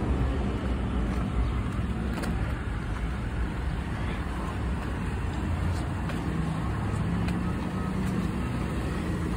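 Steady low vehicle rumble with a few faint clicks.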